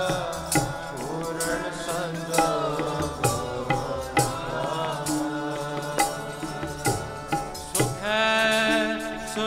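Sikh kirtan: devotional singing with harmonium and tabla, the tabla keeping a steady beat of about two strokes a second. A full held chord sounds loudest near the end.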